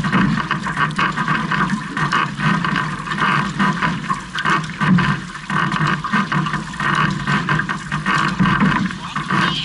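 Water rushing and splashing along the hull of a six-person outrigger canoe under paddle, swelling and easing in a steady rhythm with the strokes.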